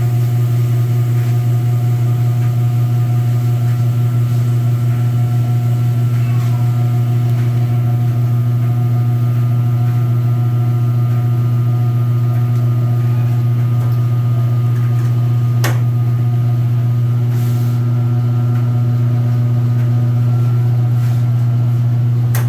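Washing machine spinning its basket: a loud, steady motor hum with no knocking or shaking, with one short click about two-thirds of the way through.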